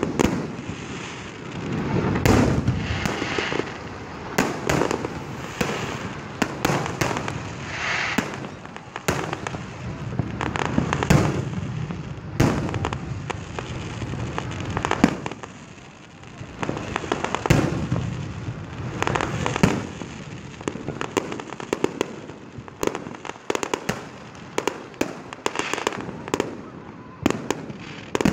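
Aerial fireworks shells bursting overhead: a steady run of deep booms with many sharp cracks and pops between them.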